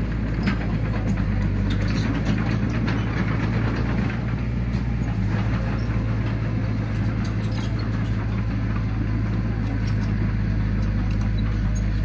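Heavy earthmoving machinery's diesel engine running steadily, with scattered light clicks and rattles over it.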